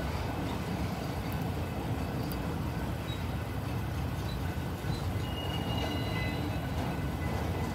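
Long freight train of autorack cars rolling slowly past a grade crossing: a steady low rumble of wheels on rail, with a few faint high squeals about two thirds of the way in.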